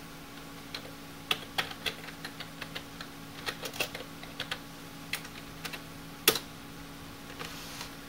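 Typing on a computer keyboard: irregular key clicks with short pauses, and one louder click about six seconds in, over a steady low hum.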